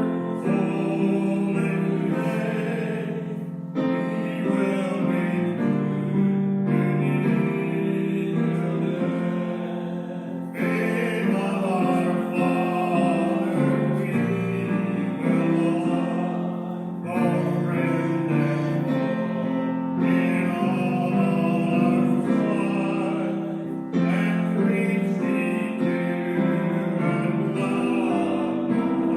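A hymn sung with piano accompaniment, in slow sustained phrases.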